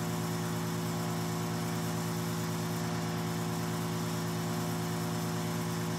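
Crystal microdermabrasion machine's vacuum pump running with a steady hum and a fast, even pulsing underneath.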